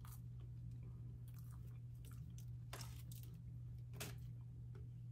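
A person chewing food close to the microphone, with a few short sharp mouth clicks, over a steady low hum.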